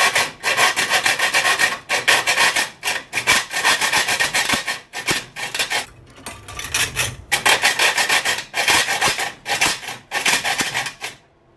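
Hacksaw cutting through a double-walled stainless steel drink bottle: quick back-and-forth rasping strokes of the blade on the metal, broken by a few short pauses. The steel is hard enough that the sawyer thinks it is probably wearing out the hacksaw's teeth.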